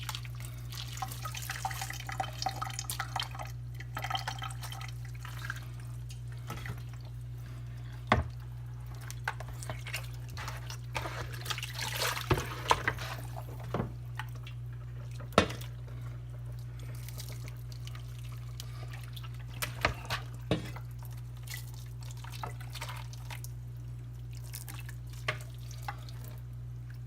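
Boiling water poured over a raw duck, splashing and dripping into a sink as the skin is scalded, with scattered clicks and knocks over a steady low hum.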